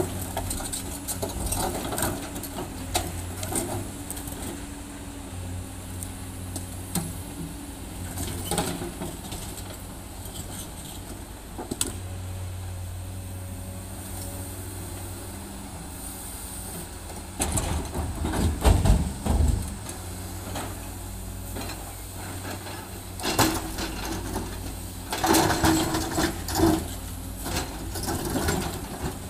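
Komatsu hydraulic excavator's diesel engine running steadily while its bucket works through broken rock, with rocks clattering and thudding in bursts. The heaviest thuds come a little past halfway and again in a cluster near the end.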